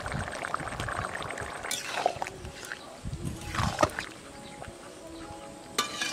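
Thick mixed-vegetable curry bubbling and gurgling in an iron kadai, then a ladle sweeping and scraping through the vegetables twice, with a sharp knock near the end.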